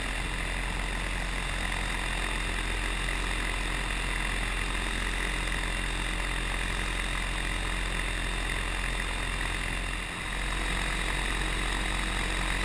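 Electric paramotor (Flytec HPD10 auxiliary drive) running steadily with its propeller in level cruise flight, a steady whine over a low hum. The level dips briefly about ten seconds in, then comes back slightly louder.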